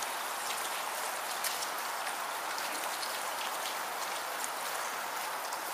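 Steady rain falling on wet concrete: an even hiss with many small, sharp drop ticks scattered through it.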